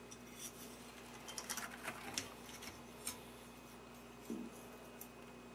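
Faint, scattered light clicks of handling noise over a quiet steady hum.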